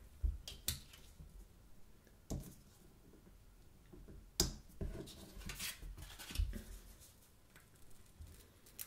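Light handling clicks and scrapes from a small aluminium home-button cover being worked on and off a smartphone's button, with a few taps on the phone, scattered irregularly.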